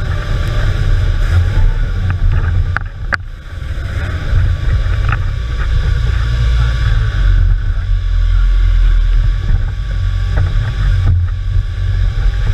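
Off-road trial buggy's engine running hard under load as it crawls over rocks, heard from inside the open cabin as a heavy low rumble. The engine eases off briefly about three seconds in, with a few sharp knocks from the chassis around then and again about five seconds in.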